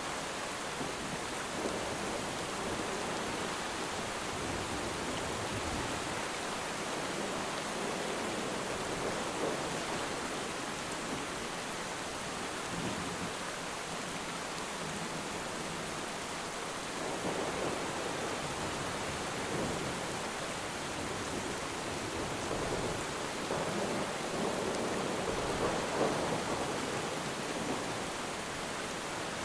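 Steady rain falling on water, a dense, even hiss with a few gentle swells.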